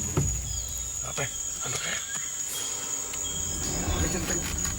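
Rainforest insects droning in one steady high-pitched tone, with a few short high chirps and scattered clicks over a low background rumble.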